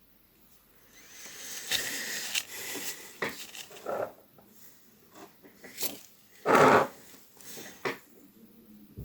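Small irregular clicks, taps and rustles of hands working on small parts, with one louder half-second rush of noise about six and a half seconds in.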